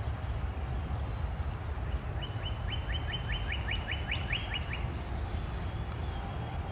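A songbird sings a quick series of about ten downslurred notes, a little over two seconds long, over a steady low rumble.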